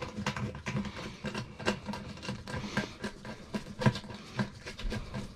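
Irregular small clicks, knocks and rubbing as hands and a flashlight work parts inside a race car's rubber fuel-cell bladder.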